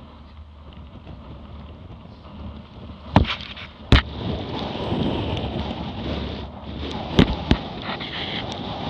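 Water rushing and splashing along a Laser Radial dinghy's hull at the waterline, with sharp slaps of waves hitting the hull, twice about three to four seconds in and twice about seven seconds in.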